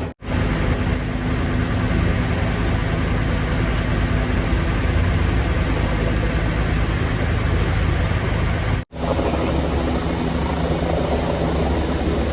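Steady low engine rumble mixed with street noise, broken twice by a brief drop to silence.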